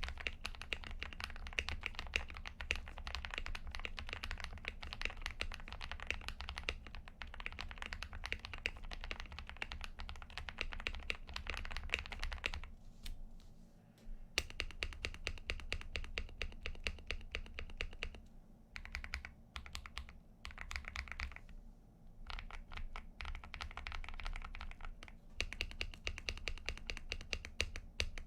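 Fast typing on a KBD67 Lite R2 mechanical keyboard with lubed Holy Panda tactile switches, PE foam and a tape-modded PCB, and PBT keycaps: rapid keystrokes in long runs, with a pause about 13 seconds in and a few shorter breaks later.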